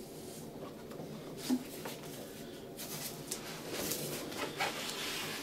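Cardboard packaging being handled and opened by hand: rustling and scraping of cardboard, with a sharp knock about a second and a half in and a few clicks and scrapes near the end.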